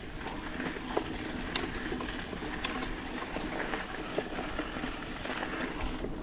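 Mountain bike rolling along a paved road: a constant rush of tyre and wind noise, with scattered clicks and rattles from the bike.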